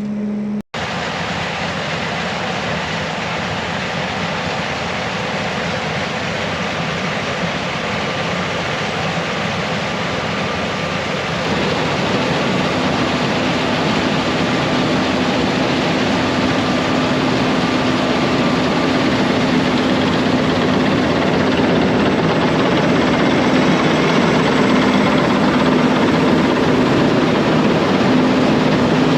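Heavy farm machinery running steadily at wheat harvest, a dense engine-and-mechanism din. About twelve seconds in, a steady low engine note comes up and the noise grows a little louder.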